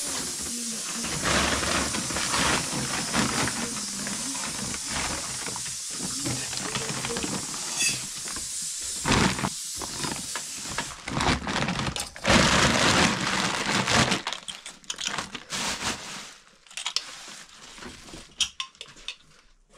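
A steady hiss for roughly the first eleven seconds, then aluminium pots and kitchen utensils clattering and knocking irregularly, fading to scattered light clicks near the end.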